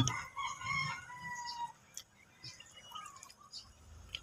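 A sharp knock at the very start, then a distant rooster crowing faintly for about a second and a half, with a few faint bird calls after.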